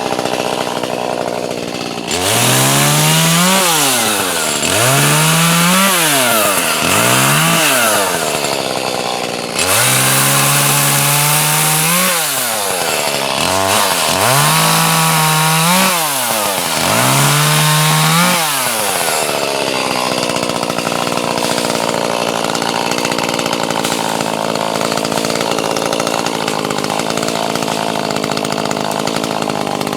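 Gas chainsaw idling, then revved up about six times, each time held at high speed for a second or two as it cuts wood before dropping back, then settling into a steady idle for the last ten seconds.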